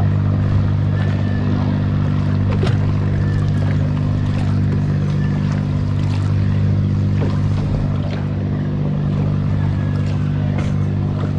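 Engine of a small wooden motorboat running steadily at constant speed, a low even drone that does not rise or fall.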